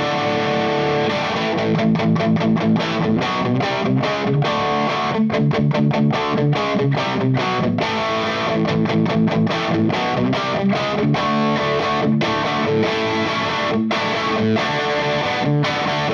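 Electric guitar, a 1981 Ibanez AS100 with humbuckers, played through the drive side of a Valco Bloodbuzz drive/fuzz pedal with the drive cranked, into an Engl Powerball 2 amp: distorted chords and riffs, picked steadily with sharp attacks.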